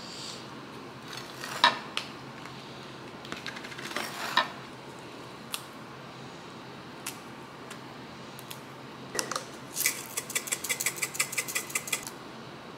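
Dishes and utensils clinking and knocking a few times during food preparation, then a quick, evenly spaced run of light clicks for about two seconds near the end.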